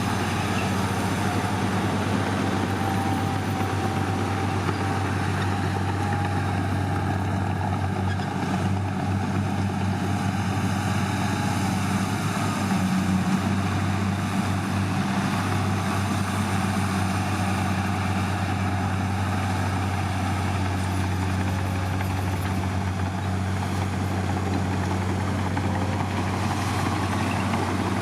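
Heavy diesel engine of earthmoving equipment running steadily, a low constant hum with no change in pace.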